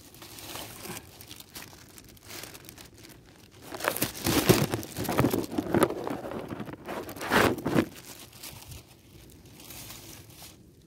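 A plastic bag crinkling and rustling as it is handled right by the microphone, in irregular bursts that are loudest between about four and eight seconds in.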